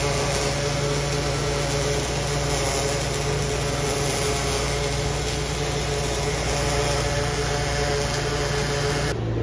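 Robotic MIG welding torch arc-welding a metal plate: a steady hiss from the arc, over a low machine hum. The hiss drops away near the end.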